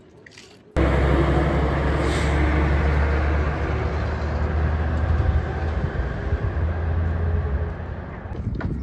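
Diesel logging truck with a trailer loaded with logs driving past on the road, a loud steady engine hum with tyre and road noise that starts suddenly and fades near the end as the truck moves away.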